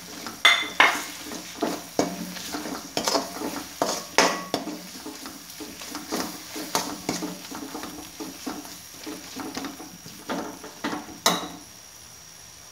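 Perforated metal skimmer stirring and scraping onions and spice masala in a metal kadhai: irregular clinks and scrapes of metal on the pan over a faint sizzle as the masala fries in oil. A last loud clack about eleven seconds in as the skimmer is set down, then only the sizzle.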